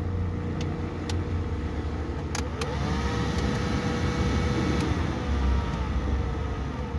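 Suzuki APV's AC blower fan motor running with a growling rumble, the "ngorok" noise that worsens at higher fan speeds. A few sharp clicks come first, then about two and a half seconds in its whine rises in pitch, holds, and falls away again around five seconds. The owner puts the growl down to a worn bearing and a worn commutator and armature.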